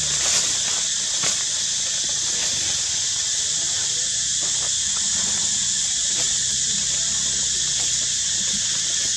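A steady, high-pitched drone of insects in the forest, unbroken and even in level.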